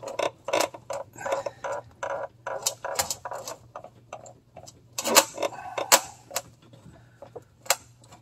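A wrench turning the parking brake cable adjusting nut on a 1948 Chevrolet, with an irregular series of sharp metal clicks and clinks as the wrench is worked in short strokes, the loudest a little after five and six seconds in.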